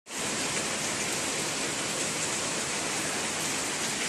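Steady rainfall, an even hiss with no breaks.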